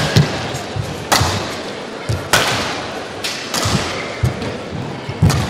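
Badminton rally: rackets striking the shuttlecock about once a second, each hit a sharp crack with a short ring in the hall, while the players' footsteps thud on the court between shots.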